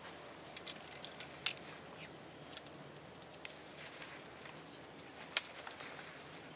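Faint outdoor background with scattered small clicks and clinks. A sharper click comes about a second and a half in and another near the end.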